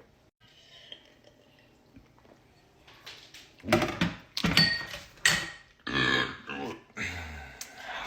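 A person making a series of loud throaty vocal sounds, five or six in a row, beginning about halfway through after a quiet start.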